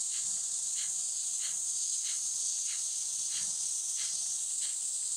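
Rhythmic, forceful breaths hissing through the nose, about one and a half a second, as in a rapid pranayama breathing exercise. Under them a steady high drone of insects.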